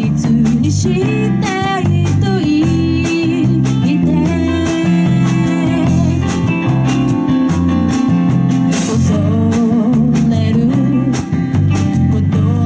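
Live band playing a song: drums, electric bass, guitar and keyboard, with a wavering lead melody line over a steady beat.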